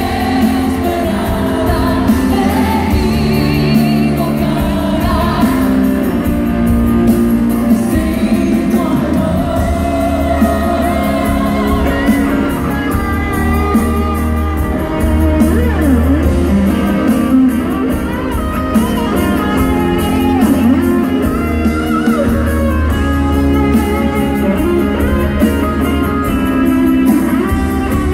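Live band music with electric guitar and bass under a singing voice, played loud in a concert hall.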